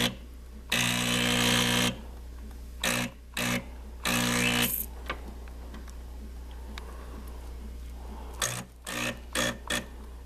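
Saeco Magic Deluxe espresso machine's vibratory pump buzzing in short bursts, one lasting just over a second, with a pause of several seconds in the middle. It is pressurizing a boiler that leaks between its clamshell halves. A steady low hum runs underneath.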